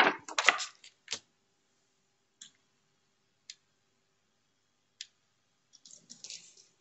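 A sheet of drawing paper being unfolded and laid flat: crinkling rustles in the first second, a few faint isolated clicks, then a soft brushing rustle near the end as hands smooth it down.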